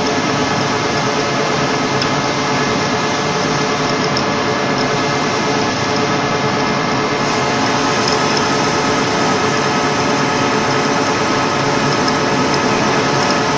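Metal-turning lathe running steadily as a workpiece is turned and the tool fed by hand, the machine giving a constant hum with several steady tones.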